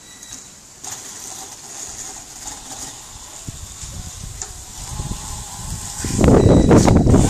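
Electric mountainboard rolling across grass toward the microphone, its electric motor giving a steady whine. The sound grows louder as it comes near, ending in a loud low noise in the last second or so.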